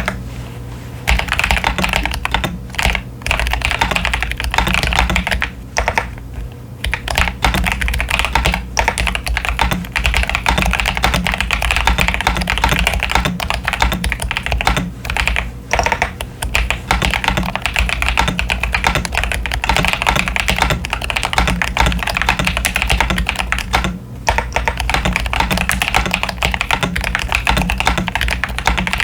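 Fast continuous typing on a modded CIY Tester 68 mechanical keyboard fitted with Akko Lavender Purple tactile switches and Cherry-profile PBT keycaps: a dense run of keystroke clacks. There are brief pauses at the start and about 6, 15 and 24 seconds in.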